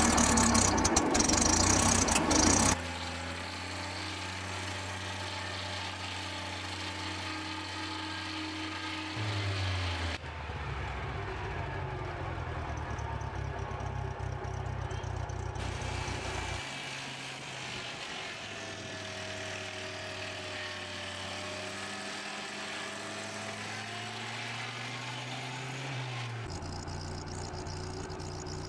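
Engine-driven machinery running steadily with a low hum, loud for the first three seconds, then quieter. The sound changes abruptly every several seconds, with slow gliding tones in the middle stretch.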